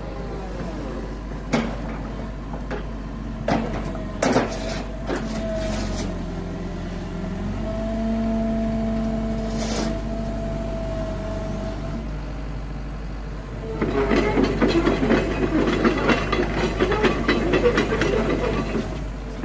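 Kobelco SK135SRD hydraulic excavator running: a steady engine hum with a hydraulic whine that shifts in pitch as the controls are worked, and a few sharp clunks in the first half. About two-thirds of the way through, a fast rattling clatter sets in.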